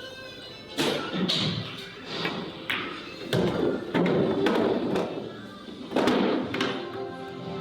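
Billiard balls clacking: about ten sharp knocks of cue tip on ball and ball on ball, some followed by a low thud, over background music.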